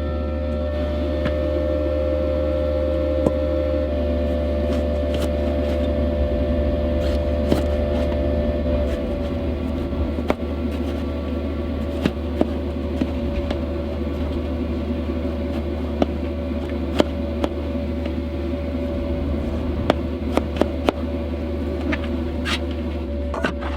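Steady low buzzing hum of a diesel heater running, with occasional sharp knocks and clicks from cooking prep.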